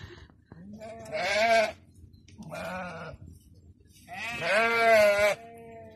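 Sheep bleating three times in wavering calls, the last the longest and loudest.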